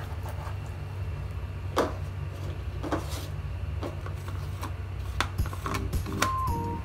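A few sharp knocks and taps from a kitchen knife on a plastic cutting board and a plastic food-chopper jar being handled, over a steady low hum. Light music begins near the end.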